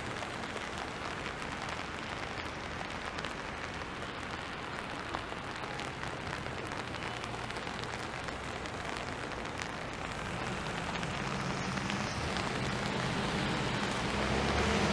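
Steady rain falling on wet pavement, an even hiss. From about ten seconds in, a low vehicle engine hum rises and grows louder toward the end.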